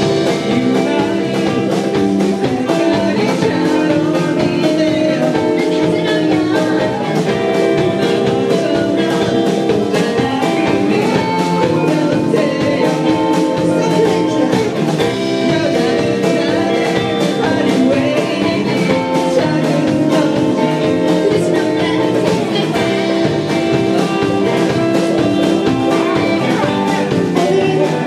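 Live band performing a song: singing over electric guitar and drums, playing steadily throughout.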